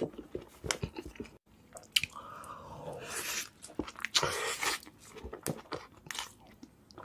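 Close-miked biting, crunching and chewing of a crispy fried-chicken burger. There are sharp separate crunches, and a denser run of crunchy chewing from about two seconds in to nearly five.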